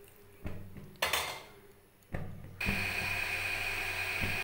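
Water poured from a steel cup into a steel pan of simmering dal, followed by a ladle knocking and scraping against the pan as it is stirred in. From about halfway a steady hiss with a faint high whistle sets in, then stops abruptly at the end.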